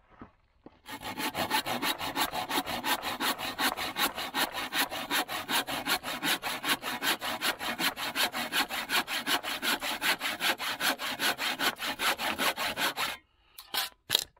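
A hand saw cutting through wood in quick, even back-and-forth strokes that stop about a second before the end, followed by a few short knocks.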